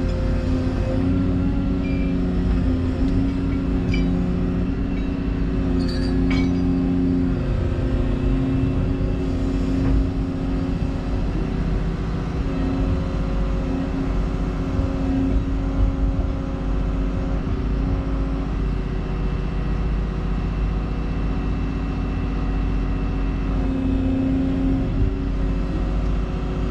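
Excavator's diesel engine running steadily while it works, its tone shifting slightly now and then.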